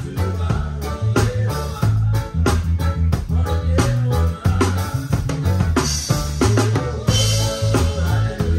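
Live band playing, heard close to the drum kit: snare and bass drum hits stand out over a bass guitar line, with cymbal crashes about six and seven seconds in.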